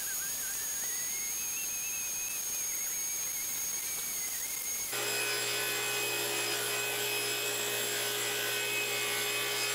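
Dust-collection suction running through a flexible hose: a steady rush of air with a thin wavering whistle. About halfway through, the sound changes abruptly to a steadier rush with a low motor hum.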